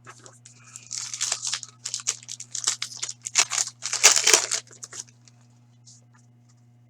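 A hockey card pack's wrapper being torn open and crinkled in the hands, a dense run of crackling for about four seconds that is loudest near the end and then stops. A steady low electrical hum sits underneath.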